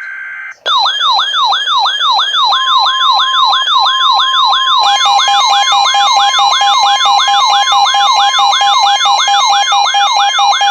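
Loud electronic emergency alert tones, several layered: a siren-like sweep falling in pitch about three times a second, joined about two seconds in by a steady beep tone. About five seconds in, a lower steady tone and a rapid stepped warble are added.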